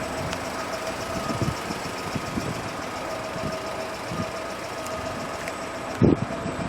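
A GAZelle truck's UMZ-4216 2.9-litre four-cylinder petrol engine idling steadily. A low thump comes about six seconds in.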